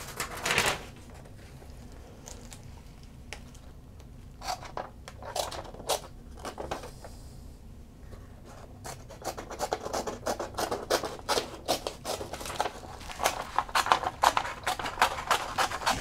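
Small spring-loaded scissors of a vintage Wenger Swiss Army knife, carbon steel with a screw pivot, snipping: a few separate snips about a third of the way in, then a quick run of snips cutting through a sheet of paper in the last several seconds. There is a single sharp clack just after the start.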